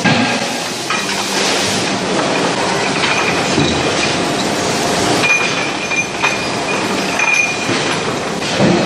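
Chain conveyor of an automatic furnace feeder running, a steady metallic clatter and rattle with a few short high squeals in the second half.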